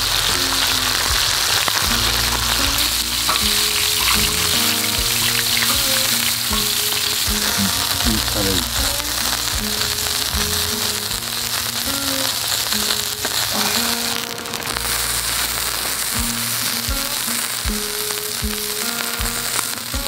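Pork belly slices sizzling on a hot cast-iron cauldron-lid (sotttukkeong) griddle, frying in their own fat with a steady hiss. Soft background music plays under it.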